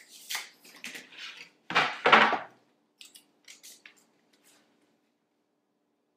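Tape measure and pencil handled on a plywood panel: metal-and-wood rattling and scraping, loudest about two seconds in, then a few light ticks and scratches as the board is marked.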